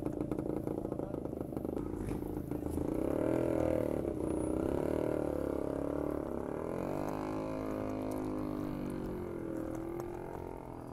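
A small engine running with an uneven note, pulsing at first and then wavering up and down in pitch.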